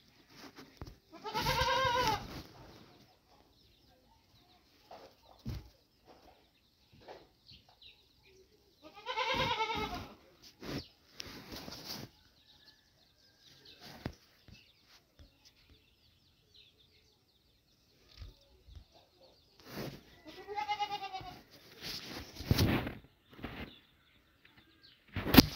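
A goat bleating three times, each call about a second long with a wavering, quavering pitch, and a loud sharp knock near the end.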